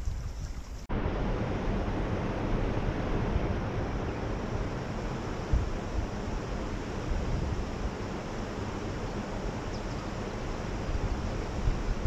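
Steady rush of spring-fed stream water, with wind buffeting the microphone. The rush comes in abruptly about a second in.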